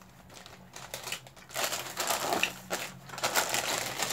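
Plastic snack wrappers crinkling and rustling as packets are handled and torn open. It starts about one and a half seconds in, after a few light clicks, and stays dense and crackly from then on.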